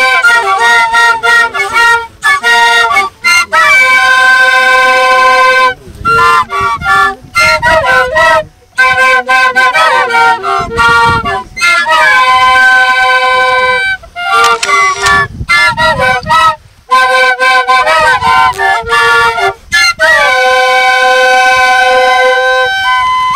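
A wind instrument playing a slow melody of long held notes that step from pitch to pitch, broken by short pauses between phrases.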